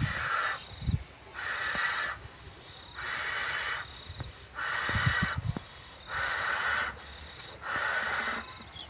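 A balloon being inflated in regular puffs of air: six even rushes of air about one and a half seconds apart, with faint knocks between them.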